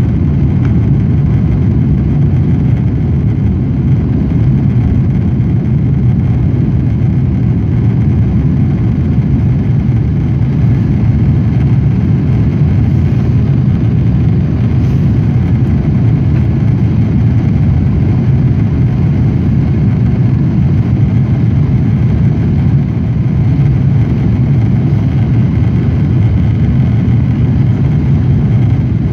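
Cabin noise of a Boeing 777-200 climbing out after take-off: its jet engines and the rushing air make a steady low rumble inside the cabin.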